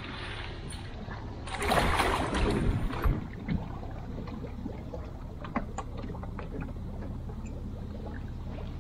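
Steady low rumble of the tow vehicle's engine as it reverses a rowboat on its trailer down into a lake. About one and a half seconds in comes a loud rush of noise lasting over a second, water surging around the trailer, then a scatter of small clicks and knocks from the trailer and boat.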